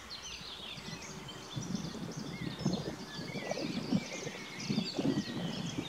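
Several birds singing together in a dense outdoor chorus of short chirps and whistling phrases, some gliding in pitch. From about a second and a half in, irregular low rumbles come and go beneath them.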